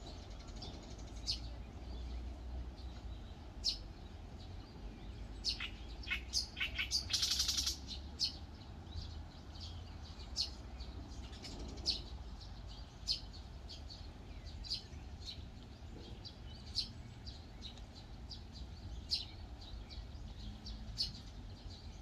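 Small birds chirping: short, high calls repeated every second or so, with a quick run of calls and a brief buzzy trill about seven seconds in, over a low steady rumble.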